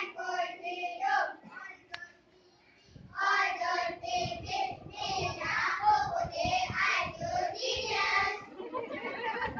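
A group of young children singing together in unison, with a short break about two seconds in before the next phrase comes in louder.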